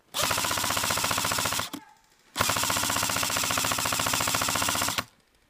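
ICS M4 airsoft electric gun (AEG) firing on full auto: two long bursts, the first about a second and a half and the second about two and a half seconds, of the gearbox's rapid mechanical buzz with the BBs going out.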